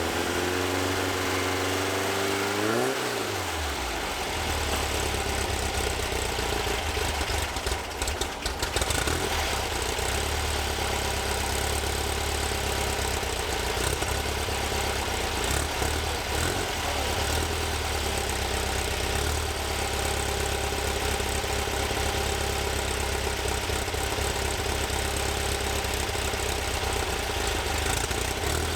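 A vehicle engine running at a steady speed, with a brief rise in pitch about three seconds in.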